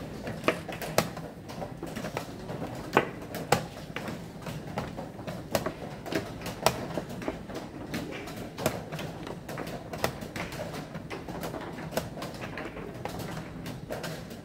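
Plastic chess pieces set down on a vinyl board and chess clock buttons pressed in quick turns: a string of sharp clicks and knocks, often in pairs about half a second apart, every second or so, over a steady low room hum.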